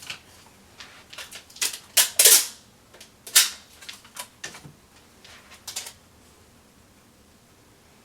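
Scotch tape being pulled, torn and pressed down while strips of toilet paper are stuck onto a computer case's vents: a run of short, sharp rips and rustles, loudest about two seconds in and again a second or so later, then stopping about six seconds in.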